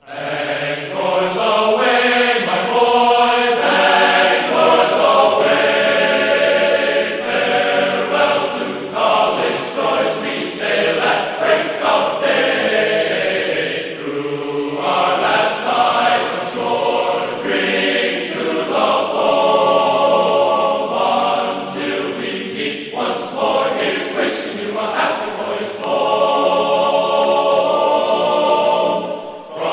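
Background music of a choir singing, starting suddenly out of silence.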